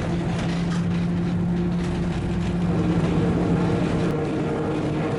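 Principe–Granarolo rack railway tramcar running uphill: a steady electric motor hum over running noise, with light clicks and rattles.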